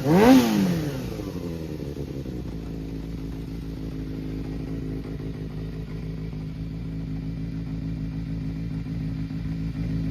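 Yamaha XJR400's air-cooled inline-four engine given a final throttle blip that falls back within about two seconds, then idling steadily. The seller describes it as running well with no abnormal noise.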